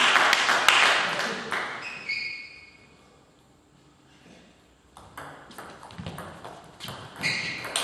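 A table tennis rally: from about five seconds in, a celluloid ball clicks off the bats and the table in quick, uneven succession. Short high squeaks of shoes on the hall floor come about two seconds in and again near the end. Background noise in the hall fades out over the first two seconds.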